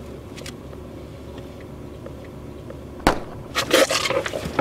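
A gunshot: one sharp crack about three seconds in, followed by about a second of further cracking noise.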